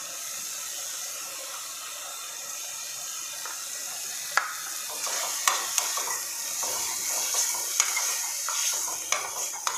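Onion-tomato masala, with turmeric and red chilli powder just added, sizzling steadily in mustard oil in a kadai. From about four seconds in, a metal spoon stirs it, clicking and scraping against the pan.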